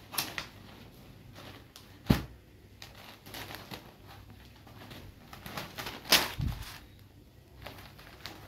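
Cotton saree being handled on a cloth-covered floor: a sharp knock about two seconds in as the folded saree is set down, soft fabric rustling, and another sharp knock about six seconds in as it is opened out.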